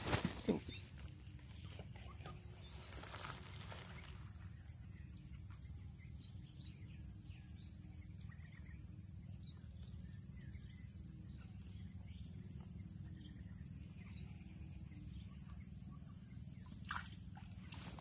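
Rural outdoor ambience: a steady high-pitched insect drone with scattered short bird chirps, and a few brief knocks right at the start.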